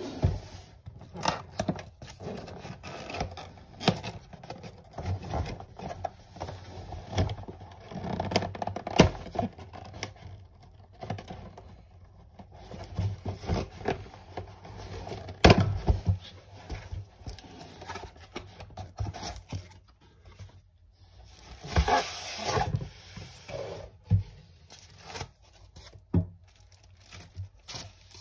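Packaging being handled by hand: a cardboard box scraping and knocking on a desk, with protective wrapping crinkling and tearing. Irregular sharp knocks, the loudest about nine and fifteen seconds in, and a denser crinkling spell a little past twenty seconds.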